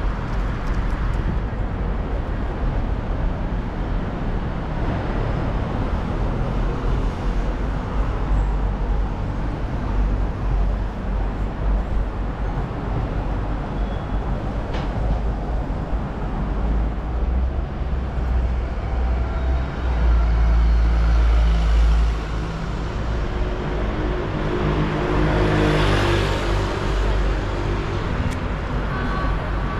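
Road traffic on a busy city street: a steady rumble of passing cars. It grows heavier about two-thirds of the way through, and a louder vehicle goes by near the end.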